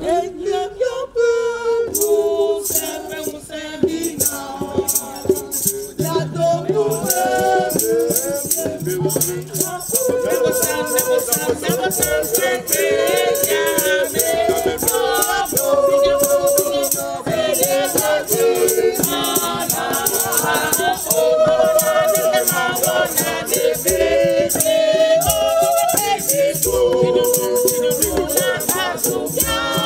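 A group of men and women singing together, accompanied by a beaded gourd rattle shaken in a steady, even rhythm.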